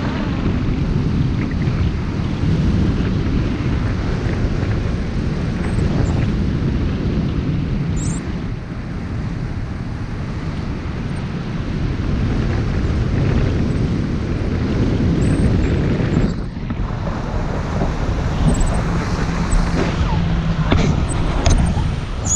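Steady wind rushing over an action camera's microphone, the airflow of a paraglider in flight.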